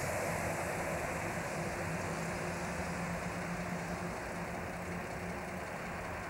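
Street traffic: a steady vehicle rumble with a faint hum, slowly fading.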